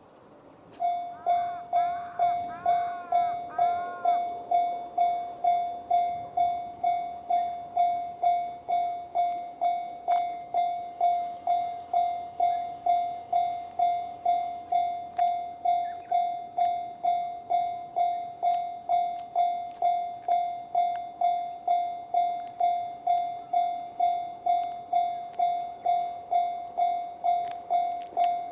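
Japanese railway level crossing's electronic warning bell in the JR standard tone, starting about a second in and striking about twice a second with each ring decaying: the crossing warning of an approaching train.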